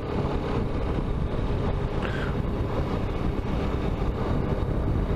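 Yamaha XTZ Ténéré 250 single-cylinder engine running steadily while riding, mixed with wind and road noise on the camera microphone.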